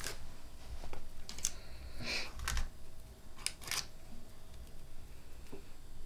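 Pieces of cut rhubarb being laid tightly onto pastry dough on a baking tray: a handful of light, irregular clicks and taps.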